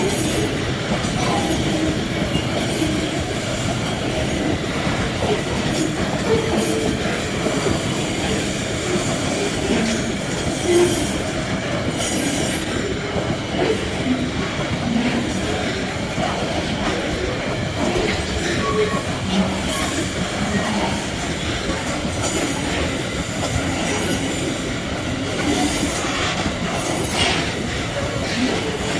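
Metre-gauge freight train rolling steadily past, its wagon wheels clattering on the track with intermittent high-pitched squeals.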